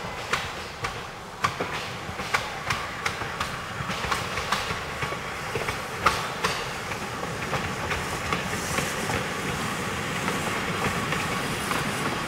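Steam locomotive #242 'Blue Goose' and its train approaching, with a run of sharp clicks and knocks, a few a second, over a rumble that grows louder as the train draws near.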